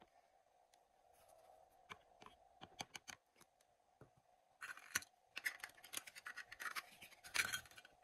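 Hard plastic toy kitchen pieces being handled over a faint steady hum. A few light clicks come first, then from about halfway there are short bouts of plastic scraping and rustling against plastic.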